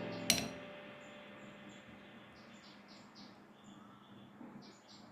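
Background music fading out, a single sharp click about a third of a second in, then faint, evenly repeated high-pitched chirping.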